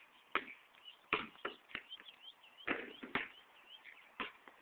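Birds chirping, with about seven sharp knocks at irregular intervals, which are the loudest sounds.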